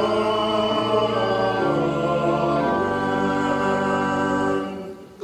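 Voices singing a slow liturgical response in held chords that move in slow steps, dying away near the end.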